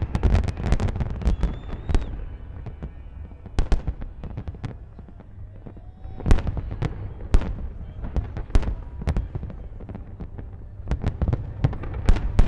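Aerial fireworks bursting: a dense volley of sharp bangs at first, then scattered single reports, then further quick clusters of bangs in the middle and near the end.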